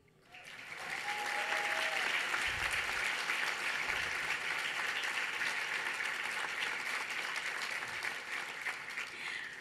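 Audience applauding, building up over the first second, holding steady, and thinning out near the end.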